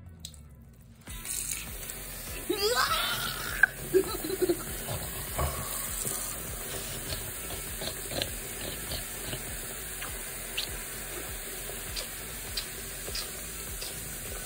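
Water running from a tap into a sink, starting about a second in as a steady hiss, with a brief voice sound and scattered small clicks and knocks over it.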